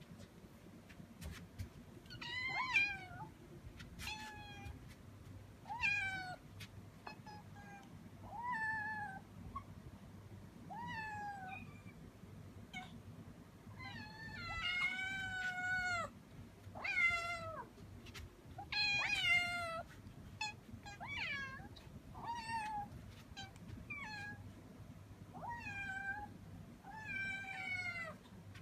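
Several kittens meowing repeatedly, high and insistent, one call every second or two, with calls overlapping near the middle. They are hungry kittens crying for food while it is being prepared.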